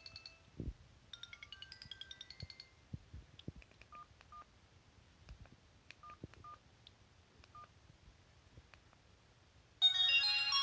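Sony Ericsson W380i mobile phone playing preloaded ringtones through its small speaker. A fast electronic beeping melody plays twice, then sparse double beeps come with a few soft knocks. Near the end a louder, fuller ringtone starts.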